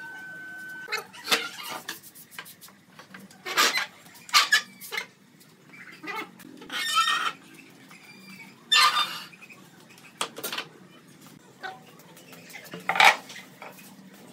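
Hinged wooden folding bed frame being unfolded and set down: its pine rails and metal piano hinges knock and clatter against each other and the concrete floor in a string of separate sharp knocks.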